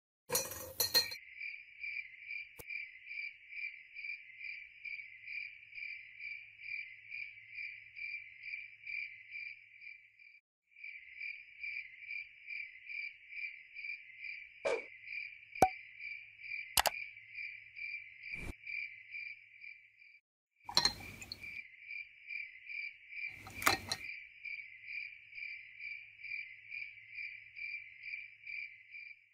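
Cricket chirping steadily, about three chirps a second, breaking off abruptly twice. A few sharp clicks and knocks sound over it.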